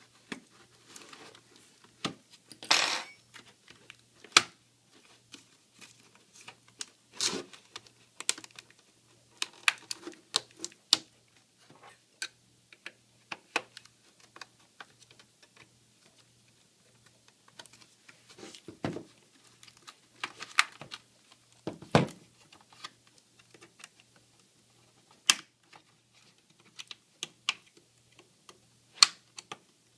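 Plastic laptop case being pried apart with a sharp tool: irregular clicks and snaps of plastic clips, with short scrapes of the tool against the plastic, the longest scrape about three seconds in.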